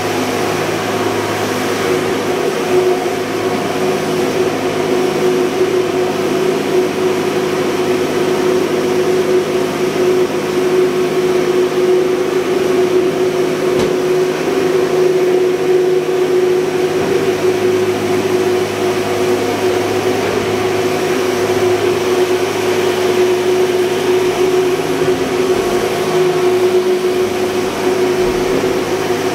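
Ship's engine-room machinery running: a loud, steady drone with a constant hum.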